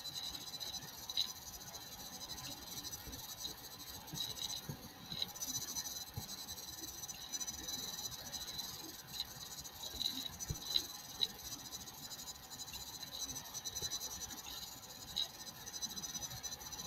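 Quiet room tone with a steady high-pitched chirring and a handful of soft computer mouse clicks.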